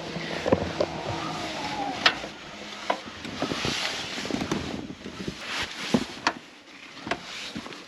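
Rustling and handling noises, with scattered light clicks and knocks, as someone moves about and handles clothing and gear.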